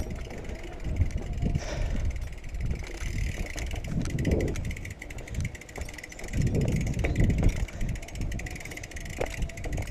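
BMX bike bumping and rattling over rough, rocky ground, its tyres rolling on stone, with uneven low knocks and a few sharp clicks.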